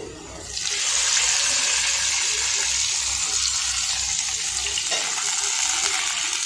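Hot oil with fried garlic and cumin seeds poured from a frying pan into buttermilk, sizzling and hissing as the tempering hits the liquid. The sizzle starts about half a second in and stays steady.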